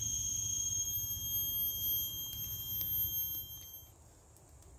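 A steady high-pitched insect whine, one unwavering tone with higher overtones, over a low rumble; both stop about four seconds in.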